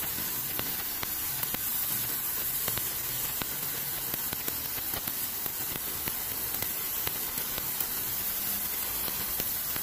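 A narrow, high-pressure water jet from a hose nozzle blasting onto wet concrete, a steady hiss, washing algae off the slippery floor.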